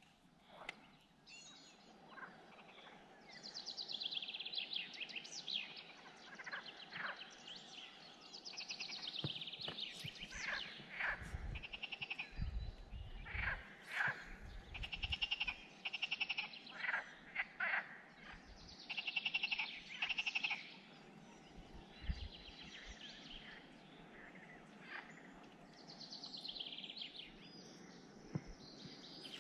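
Outdoor animal calls: repeated high, rapidly pulsed trills about a second or two long, with short chirps in between. A few low thumps come through between about 9 and 15 seconds and again near 22 seconds.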